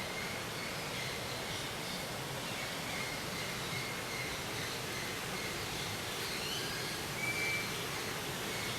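Outdoor nature ambience: a steady hiss of background noise with scattered faint bird calls, short whistled notes, and one clearer whistle about seven seconds in.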